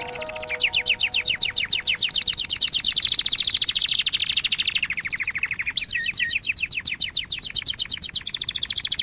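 A songbird singing a long, fast trill of high repeated notes, which changes to a different note pattern about six seconds in.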